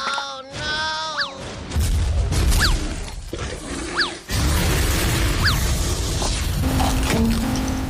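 Edited crushing sound effects over music: dense crunching and shattering noise with a heavy low rumble, broken by several quick sliding whistle-like tones.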